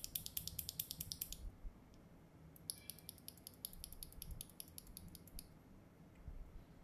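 A loose mechanical keyboard switch pressed rapidly between finger and thumb, its stem clicking down and back up several times a second. The clicking comes in two quick runs with a pause of about a second between them.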